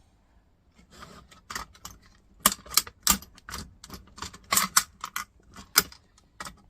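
Irregular sharp clicks and clinks of small metal parts and tools being handled, starting about a second in.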